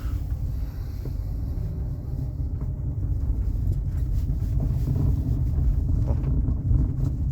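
Chery Tiggo 8 Pro Max driving over rough road, heard from inside the cabin: a steady low road rumble, with scattered clunks and rattles that grow louder in the second half. The owner takes the knock for a worn or loose steering rack.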